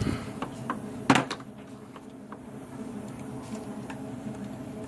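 A few light clicks and one sharp metallic clink about a second in, hand tools and parts knocking on metal during engine work, over a steady low hum.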